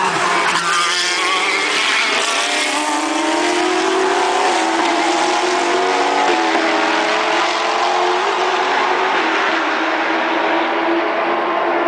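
Racing car engines running hard on the circuit, the engine note stepping abruptly in pitch a few times, around a third and halfway through and again later, as gears change.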